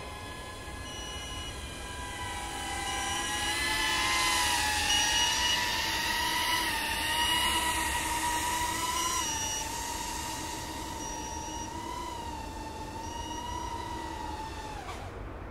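Small FPV quadcopter's motors (DYS 1306 4000KV) and three-blade 3-inch props whining in flight. The pitch wavers with the throttle and the whine is loudest as the drone comes close. Near the end the whine drops in pitch and cuts off as the motors stop.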